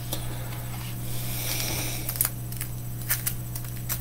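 Soft rustling and a few short clicks of hands handling things at a desk, over a steady low electrical hum.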